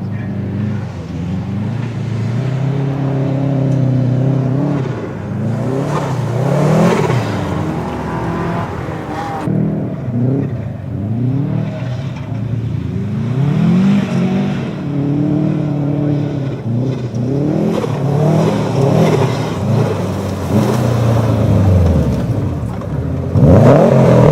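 Car engine driven hard, the revs climbing and dropping again and again every second or two as the car slides through mud, loudest near the end.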